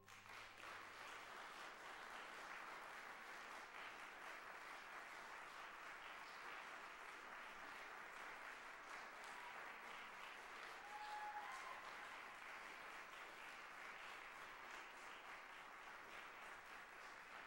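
Audience applauding: a steady patter of many hands clapping that holds evenly throughout.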